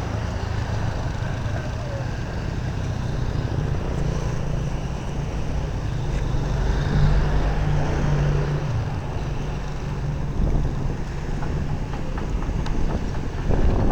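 An engine running steadily with a low drone that swells a little midway.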